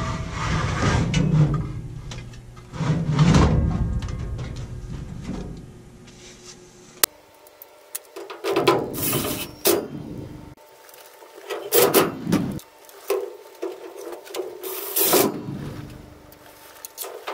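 Rubbing and scraping of a zone damper motor being handled and fitted back onto its sheet-metal duct damper, with its wires being handled, in irregular bursts and one sharp click about seven seconds in.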